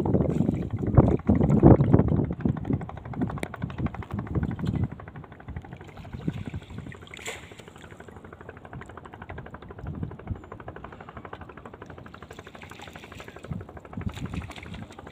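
Water and knocks around a small boat on the river, louder and rough for the first few seconds with a couple of sharp knocks, then a quieter steady low noise with wind on the microphone.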